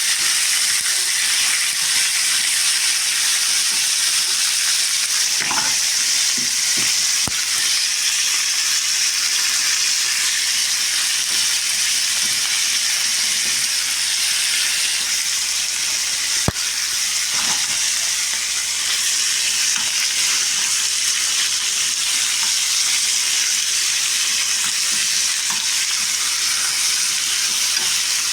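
Food frying in a pan: a steady sizzle, with a few light knocks and one sharp click about halfway through.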